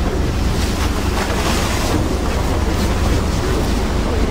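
Icebreaker hull pushing through drift ice: broken ice and slushy water churning and hissing along the side, over a steady low rumble with wind buffeting the microphone.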